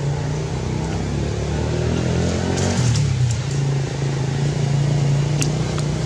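Steady low hum of an engine running, with a few faint clicks.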